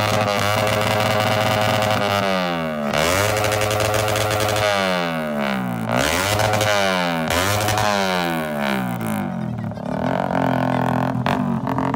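Motorcycle engine revved again and again, each rev climbing quickly and then falling away over about a second. Near the end it settles into a steady, lower note.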